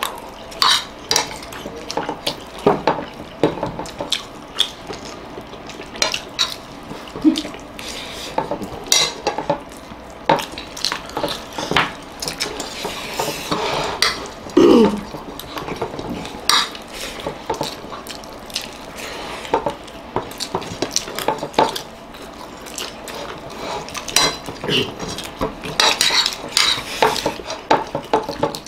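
Metal spoon and fork clinking and scraping against a plate in irregular, quick clicks while eating rice. A short falling voice sound comes about halfway through.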